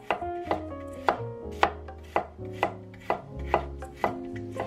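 Chinese cleaver slicing garlic cloves on a wooden cutting board, each cut knocking on the wood at about two chops a second.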